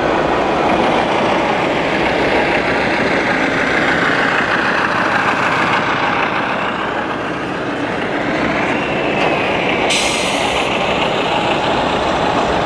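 Scale RC truck sound module playing a truck engine over steady noise, with a short hiss about ten seconds in.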